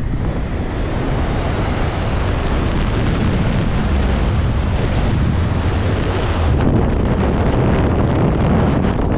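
Wind rushing over the onboard camera of a small aircraft in a descent, with a steady low rumble of its motor. The high hiss drops off abruptly about six and a half seconds in.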